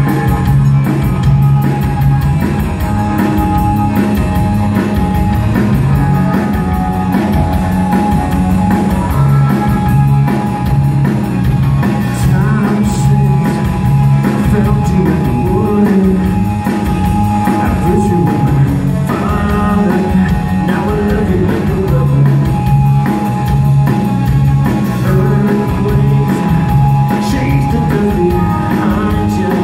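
Live rock band playing loudly: electric guitars, electric bass and a drum kit, steady throughout.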